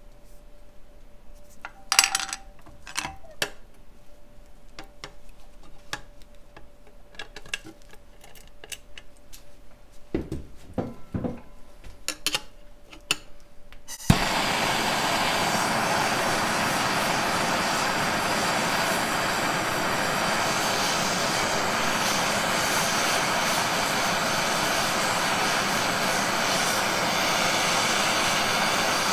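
Scattered light clicks and knocks, then about halfway through a plumbing torch comes on with a sharp click and burns with a loud, steady hiss. Its flame is heating the thin zinc casting of a key lockbox to defeat it.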